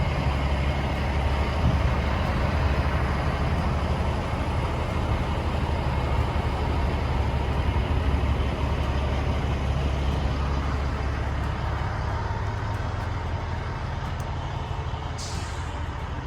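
Semi truck's diesel engine running steadily with road noise, slowly getting quieter. A short hiss of air comes near the end.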